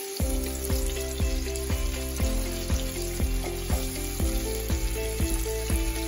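Hot oil sizzling as cornstarch-coated shrimp deep-fry in a pot. Background music with a steady beat of about two a second comes in just after the start and is the loudest sound.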